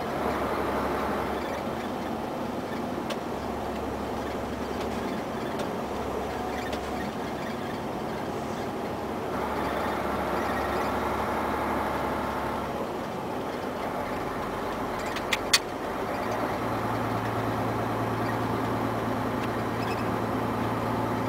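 Cab interior of a Mercedes-Benz Actros 1848 lorry on the move: the diesel engine runs under a steady haze of road and tyre noise, its hum shifting in pitch, moving higher about two-thirds of the way through. A couple of sharp clicks sound about fifteen seconds in.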